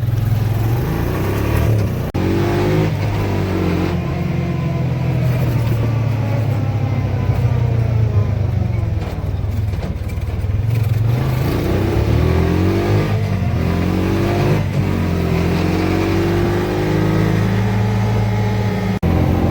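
Motor vehicles on a highway: steady engine hum with vehicles passing, their pitch bending as they go by.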